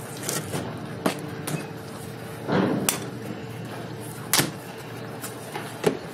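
Cardboard box being opened by hand: flaps pulled back and the cardboard rustling, with several short sharp knocks and clicks. The loudest rustle comes about two and a half seconds in.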